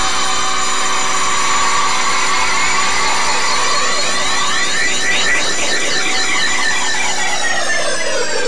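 Loud electronic synthesizer drone, dense with steady overtones and slowly shifting sweeps, beginning to slide down in pitch near the end like a power-down.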